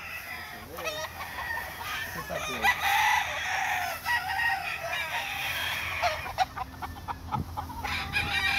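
Gamecocks crowing one after another from their pens, with chickens clucking in between.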